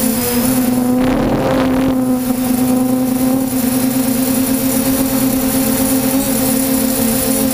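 DJI F550 Flame Wheel hexacopter's six electric motors and propellers in flight, heard from the camera on the airframe: a steady, loud drone with a slight dip in pitch near the start. About a second in, a brief rush of noise lasts about a second.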